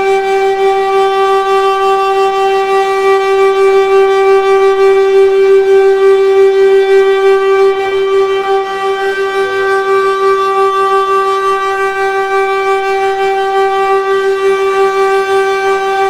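An emergency alert alarm tone with an echo effect, held loud at one steady pitch with a rich, buzzy set of overtones.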